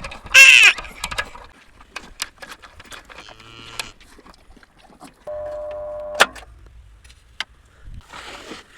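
A loud animal call with an arched pitch near the start. About halfway through comes a steady tone lasting about a second, then a sharp click.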